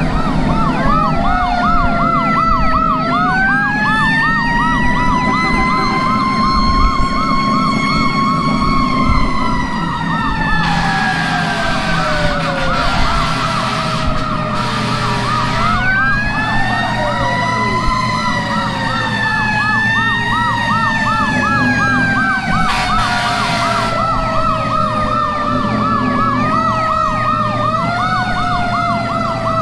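Several fire engine sirens sounding together: mechanical sirens winding up and slowly winding down in long overlapping wails, and an electronic siren warbling rapidly throughout, over a steady truck engine drone. Loud hissing stretches come in twice, around the middle and again later.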